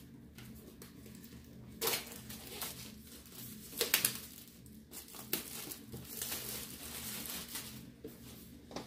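A cardboard laptop box and its paper and plastic wrapping being opened by hand, crinkling and tearing in irregular rustles. The sharpest tears come about 2 and 4 seconds in.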